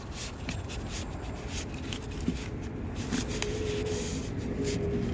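Scattered light clicks and rubbing of engine parts being handled and fitted back by hand, over a steady low background noise.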